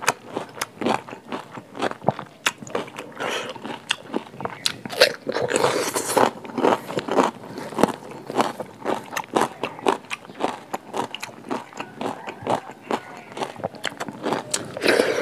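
A person biting and chewing crunchy food, a dense run of irregular crunches and crackles.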